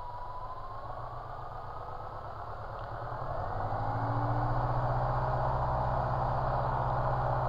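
Light aircraft's piston engine during the pre-takeoff run-up. About three and a half seconds in it grows louder as the throttle is opened to the 1800 RPM run-up setting, then runs steadily, with a thin whine rising in pitch before the change.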